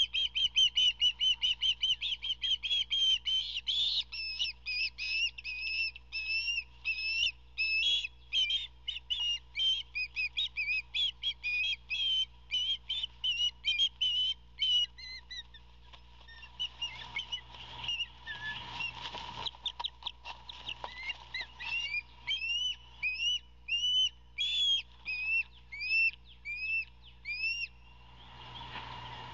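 Ospreys calling at the nest: a rapid run of high, whistled chirps, then a scuffle of flapping wings, then slower single whistles that rise and fall.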